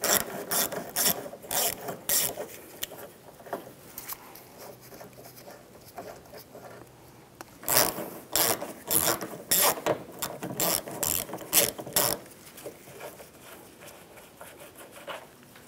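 Hand ratchet with an 11 mm socket on an extension clicking in short rapid bursts as a nut is loosened, in two spells with a quieter gap between.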